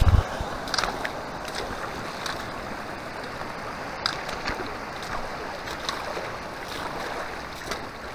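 Shallow mountain stream running steadily as it is crossed on foot, with scattered short knocks and clicks over the water noise and a few heavy low bumps right at the start.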